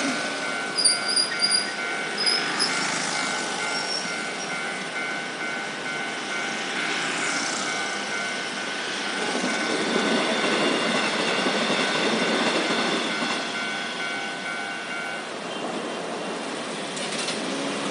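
Railway level crossing warning alarm sounding its unusual steady two-tone signal while a train passes, the passing rumble swelling from about nine seconds in; the alarm stops about fifteen seconds in. A few short high chirps sound in the first few seconds.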